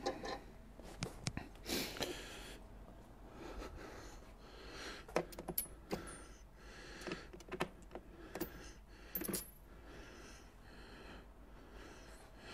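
Steel sockets clinking against each other and their rack rails as they are picked through, in quiet, irregular metallic clicks with a few brief ringing pings.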